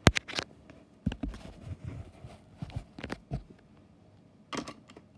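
Clicks and light knocks of handling, a sharp click at the start being the loudest, followed by scattered small knocks and another pair of clicks near the end.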